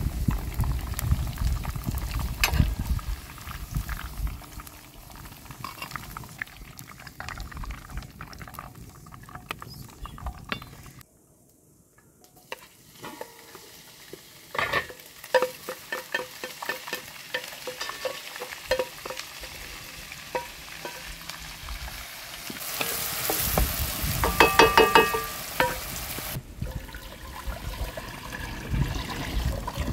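Green peppers frying in oil in a pan over a wood fire, stirred and turned with a wooden spatula, with many small clicks and clinks of utensils and dishes. Near the end, water pours from a clay jug into a metal pot.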